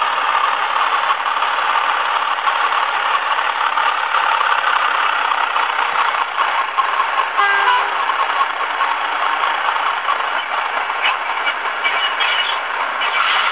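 Class 31 diesel engine soundtrack from a Zimo DCC sound decoder, played through an N gauge model locomotive's small onboard speaker: a steady engine drone as the model creeps along, with a brief pitched tone about halfway through.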